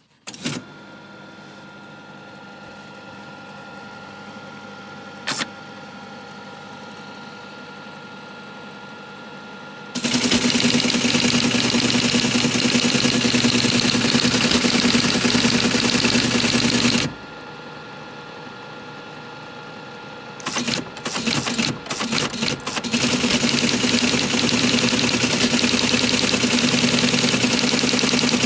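Teletype Model 33 KSR switched on, its motor humming steadily, with a single click about five seconds in. About ten seconds in it starts clattering fast and evenly as it prints incoming text at 110 baud. It stops after about seven seconds, leaving the motor hum, then prints again in a few short bursts and steady clatter near the end.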